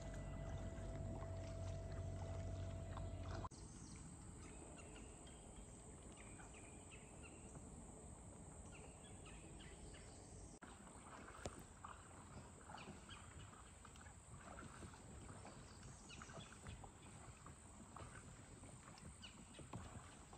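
Kayak paddling on a calm river: faint paddle splashes and drips over a quiet outdoor background, with scattered faint short chirps. For the first few seconds a steady hum with a held tone runs, then cuts off suddenly.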